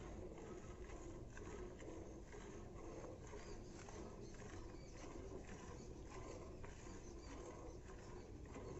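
A cow being milked by hand: squirts of milk hitting a steel bucket in a quiet, regular rhythm of about two to three strokes a second.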